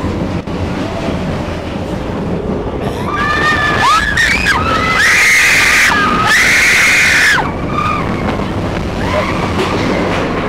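Expedition Everest roller coaster train running along the track, with riders screaming from about three seconds in; two long screams near the middle are the loudest.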